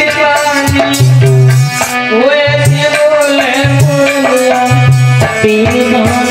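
A man singing a Hindi folk song in a bright, held voice to a harmonium, with hand-drum beats keeping the rhythm.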